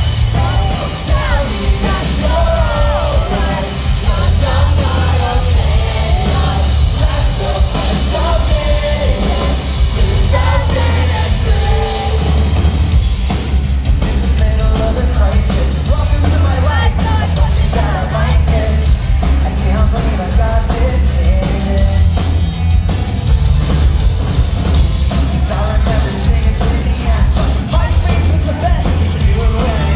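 A pop-punk band playing live and loud, with a singer over guitars, bass and drums, recorded from within the crowd, with yelling along.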